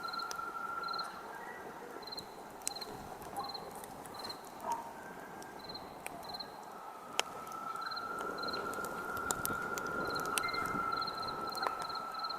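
Campfire crackling with scattered sharp pops, the loudest about seven seconds in, over a soft hiss. Crickets chirp in short paired pulses throughout, and a steady high insect trill drops out about a second in and returns around seven seconds.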